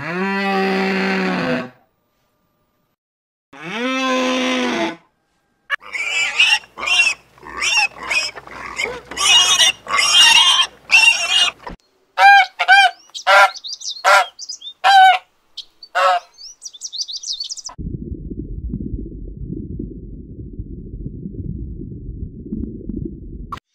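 A series of sharp, clipped Canada goose honks, with a noisy chattering passage before them. Earlier come two long drawn-out calls, and at the end a steady low rumble for about six seconds.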